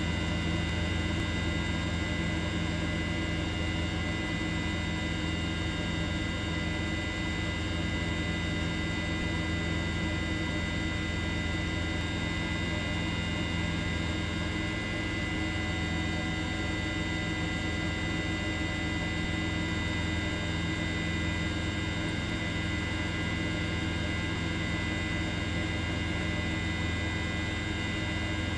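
A steady, unchanging hum with several fixed higher tones above a strong low drone.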